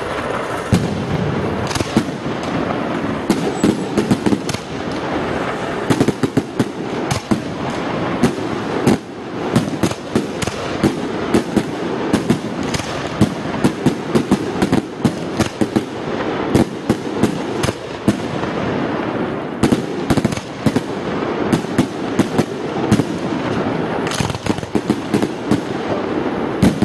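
Aerial fireworks display: shells bursting in a rapid, continuous series of sharp bangs over a steady din.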